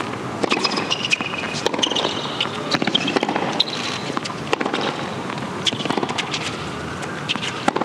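Tennis rally on a hard court: sharp pops of the racket striking the ball and the ball bouncing, several a second, with short high squeaks of shoes on the court.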